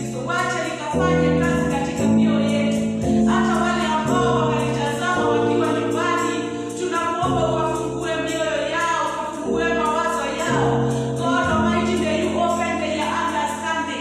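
A choir singing a gospel song over held instrumental chords that change about every second.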